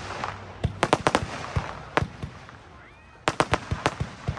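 Röder 'Farbtastisch' consumer fireworks battery firing: sharp launch shots and star bursts in quick clusters, with a crackling hiss between them. The densest run of shots comes near the end.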